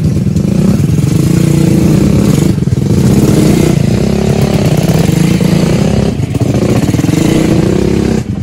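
Motorcycle engines running close by, their pitch rising and falling a little, with a few brief dips in level.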